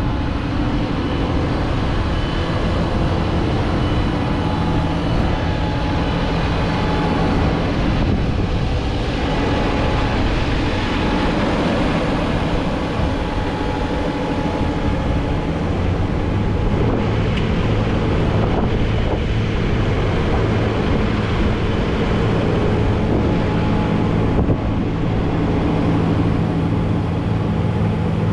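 JCB Fastrac 4220's 6.6-litre six-cylinder diesel engine running steadily close by, with some wind on the microphone.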